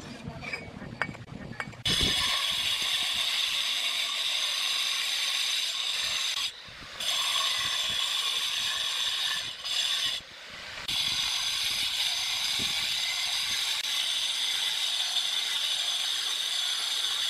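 Angle grinder with a cutting disc running and cutting through a natural stone tile: a loud, steady high whine that starts about two seconds in, after a few light handling knocks, and twice dips briefly.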